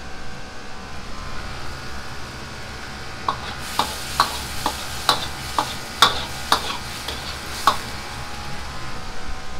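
A metal ladle clinking sharply against a steel wok about ten times while stirring mapo tofu sauce, over the steady rush of a high gas wok burner. The clinks come between about three and eight seconds in, as the sauce is thickened with starch slurry.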